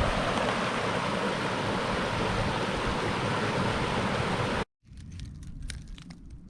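Steady rushing of flowing creek water, which cuts off abruptly about four and a half seconds in. After it, a much quieter stretch with scattered light ticks and crunches.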